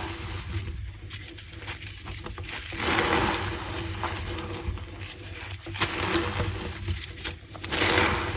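Blocks of reformed gym chalk crushed and squeezed by hand, crunching and squeaking, with bursts of crackling between two swells of crumbling about three seconds in and near the end.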